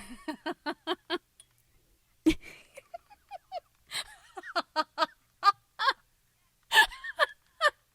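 A woman laughing in fits of short, rhythmic "ha" pulses, about five a second. Each fit opens with a loud, breathy burst: one at the start, one after about two seconds, and one near the end.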